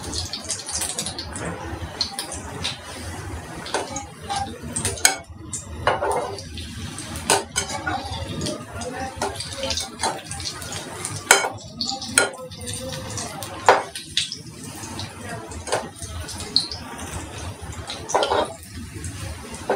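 Patties deep-frying in a kadai of oil on a low flame, sizzling steadily. A perforated steel slotted spoon clinks and scrapes against the pan several times as they are turned and lifted.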